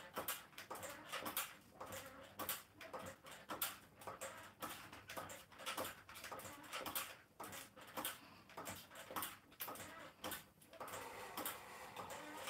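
Niceday mini stepper being worked in steady stepping, its pedals and pistons clicking and knocking in an even rhythm of about two to three strokes a second.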